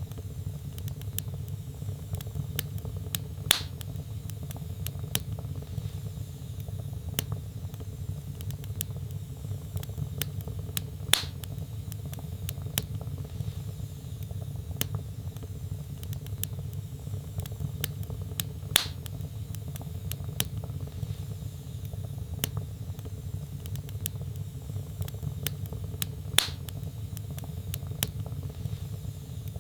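Wood fire burning in a fireplace: a steady low rumble of flames with light crackling throughout, and four louder sharp pops from the burning logs, about one every seven and a half seconds.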